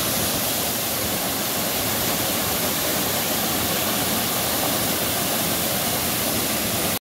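Waterfall rushing: a steady, even rush of falling water that cuts off suddenly at the very end.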